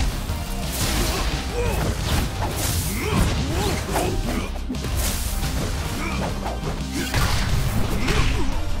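Cartoon fight sound effects: a string of hits, crashes and whooshes, about half a dozen, over dramatic action music.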